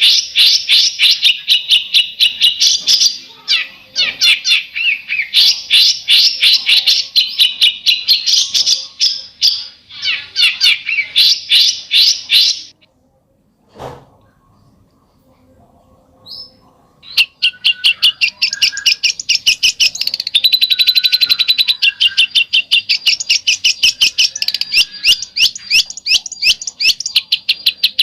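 A songbird giving a besetan call: long, fast runs of sharp, high repeated notes. The runs break off about halfway through for a few seconds, then start again.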